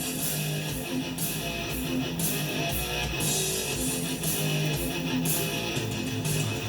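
Guitar-driven rock music playing from a recording.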